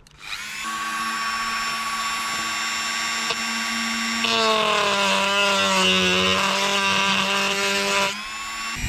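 Dremel rotary tool with a cutting disc starting up and whining steadily, then about four seconds in cutting into the motorhome's aluminium outer skin: the pitch dips and wavers under load with a harsh rasp, until the disc comes off the cut near the end.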